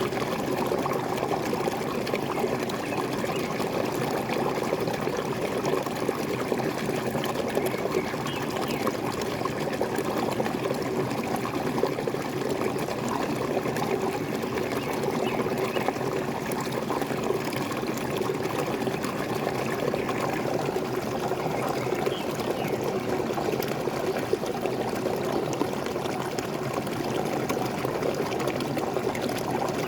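Waterfall pouring steadily, water splashing and trickling without a break.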